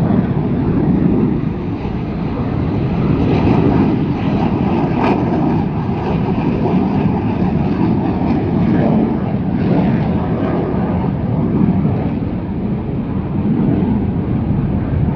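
Aircraft engines rumbling loudly and steadily, swelling and easing slowly, as an aircraft takes off and climbs away.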